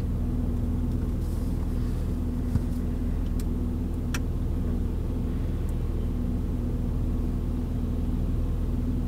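Car engine idling, heard from inside the cabin while the car stands still in traffic: a steady low hum, with a few faint clicks about three to four seconds in.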